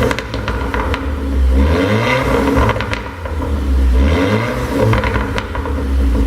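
Audi A5 2.0 TFSI turbocharged four-cylinder revved in repeated blips, each followed by a run of exhaust pops and crackles as the revs drop: the overrun pops of a tuned engine map.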